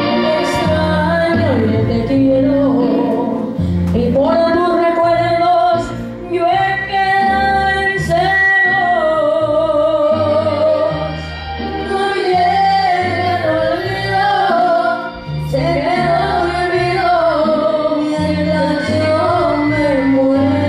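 Girl and boy singing a duet into amplified microphones over backing music with a stepping bass line, the sung melody running on without pause.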